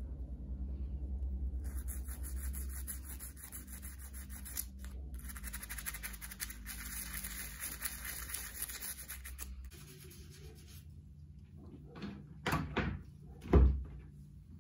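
Toothbrush scrubbing a small metal part in soapy water: rapid back-and-forth bristle strokes that start about two seconds in and stop around ten seconds. Near the end come a few knocks, the last and loudest a dull thunk.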